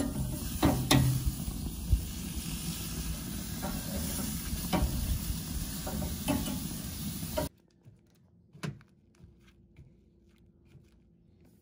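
Chicken breasts sizzling on a gas grill's grates, with metal tongs clicking against the grate a few times. About seven and a half seconds in, the sound cuts off to near quiet, with one light tap.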